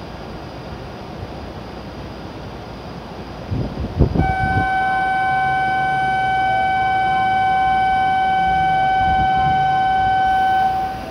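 A loud, steady electronic warning buzzer on one pitch sounds for about six and a half seconds, starting about four seconds in and cutting off near the end, as the train doors and platform fence close before a shinkansen departs. A few low thuds come just before it, over a steady background hum.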